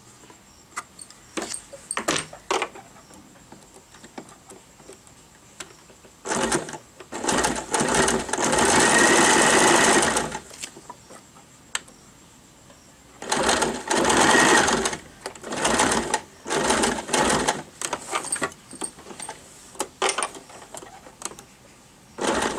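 Electric sewing machine stitching a buttonhole, running in bursts of one to three seconds and stopping in between as the foot pedal is pressed and released. A few light clicks come in the first seconds, before the first burst about six seconds in.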